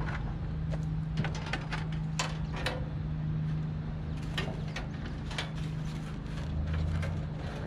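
Scattered light clicks and knocks of a window air conditioner's case and parts being handled and fitted back together, over a steady low hum.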